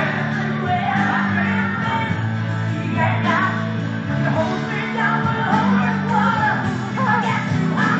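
A man singing along with a recorded song, its low bass notes held steady underneath the wavering vocal line.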